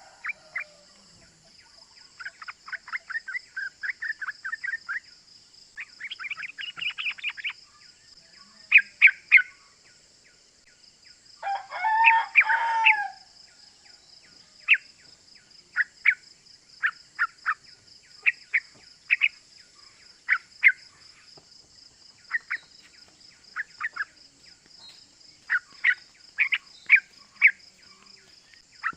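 Yellow-vented bulbul (trucukan) calling: fast chattering runs of sharp 'cuk cuk' notes and scattered single chirps. A louder, lower call comes about twelve seconds in, over a steady high-pitched hiss.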